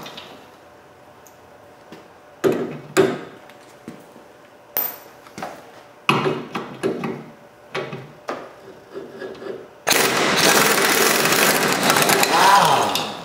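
Pneumatic impact wrench loosening the rusty bumper mounting bolts: a string of short rattling bursts, then a steady run of about three seconds starting about ten seconds in.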